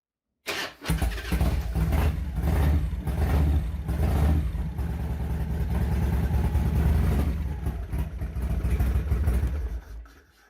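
Revtech 100 cubic inch V-twin motorcycle engine starting, with its compression releases open, and then running with a loud, steady low rumble that dies away near the end. The owner calls it a slow start, because the engine is not fully warmed up and the bike has sat for a couple of weeks.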